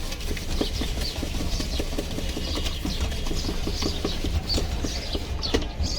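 Kitchen utensils knocking in a steady rhythm, about three to four strokes a second, as jhalmuri is prepared by hand.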